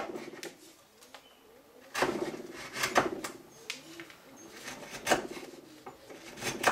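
Wood chisel cutting by hand into the shoulder of an ash axe handle: about five sharp cracks as the edge bites in and wood fibres part, a second or two apart.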